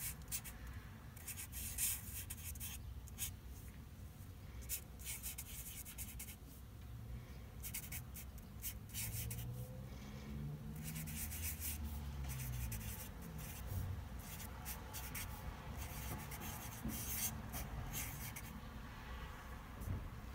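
Black felt-tip Sharpie marker writing on paper: clusters of short scratchy strokes, one cluster per word, with brief pauses between them.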